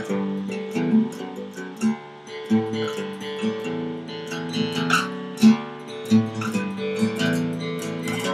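Acoustic guitar strummed in a steady rhythm, chords ringing with strokes about every half second: the instrumental intro of an acoustic song.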